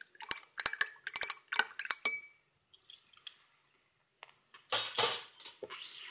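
Glass stirring rod clinking quickly and repeatedly against the inside of a glass beaker, stirring hydrochloric acid fast into diluted water glass (sodium silicate solution) as it sets into silicic acid gel. The clinks stop after about two seconds; a short rustling noise comes about five seconds in.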